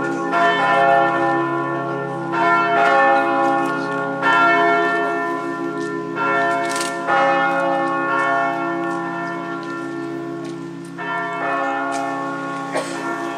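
Church bells ringing, several bells at once: new strikes every second or two over a steady, overlapping ringing hum.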